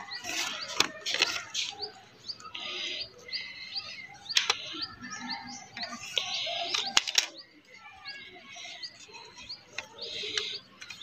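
Stiff coloured paper rustling and crinkling as it is folded and handled, with a few sharp taps; small birds chirp repeatedly in the background.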